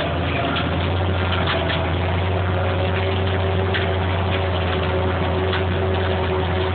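Fendt 716 tractor's six-cylinder diesel engine running steadily under load, heard from inside the cab while it pulls a cultivator through heavy clay. Scattered faint clicks and rattles sound over the even drone.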